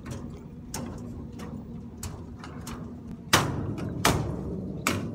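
Rhythmic knocking on a footbridge's ribbed walkway deck, about three knocks every two seconds, over a low steady hum. The strongest knocks come a little over three and four seconds in.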